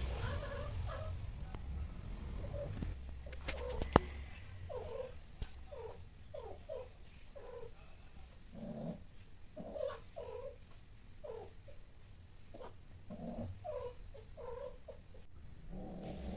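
Cats mating: a low purring rumble in the first few seconds, then a string of short, repeated yowls. A single sharp click about four seconds in is the loudest sound.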